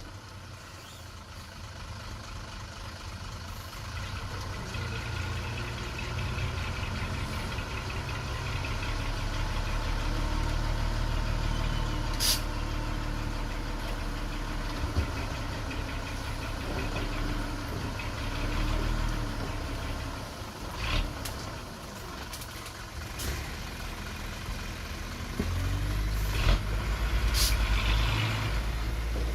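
Komatsu mini bulldozer's diesel engine running under work, its low rumble swelling and easing, with a few short sharp clanks.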